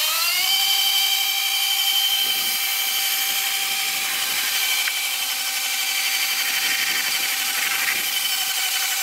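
Milandr SM electric motorcycle doing a stationary burnout: its electric drivetrain gives a high whine that climbs in pitch for about half a second and then holds steady, over the hiss of the spinning rear tyre on the asphalt.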